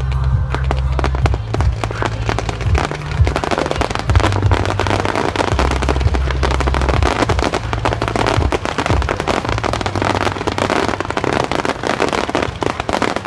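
Fireworks going off in a dense, continuous crackle of pops, with a deep low throb underneath that stops about two-thirds of the way through.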